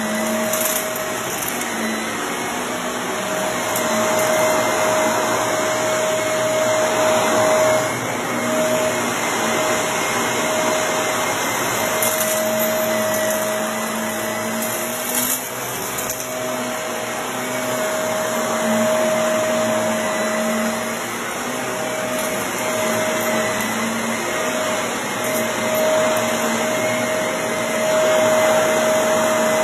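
Shark Navigator upright vacuum cleaner running on carpet: a steady motor whine over the rush of suction, swelling and easing a little in loudness, with a few brief light clicks.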